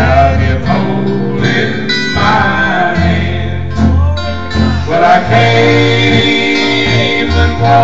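A man singing a slow gospel song, accompanying himself on acoustic guitar.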